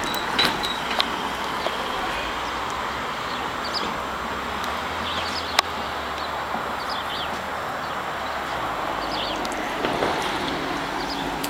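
Small birds chirping in short, high calls over a steady outdoor hiss, with a few sharp clicks, the sharpest about halfway through.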